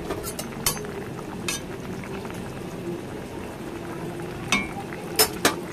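Curry gravy bubbling at the boil in a metal pan, with several sharp clinks of a spoon against the pan, the loudest near the end.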